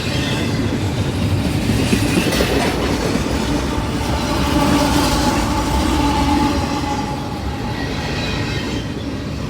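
CSX intermodal freight train's cars rolling past: a steady, loud rumble of wheels on rail with occasional clanks, and a faint steady whine from about four to eight seconds in.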